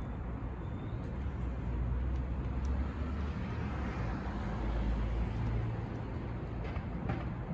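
Low, steady rumble of road traffic that swells twice as vehicles pass, with a few faint ticks from a cat licking wet food.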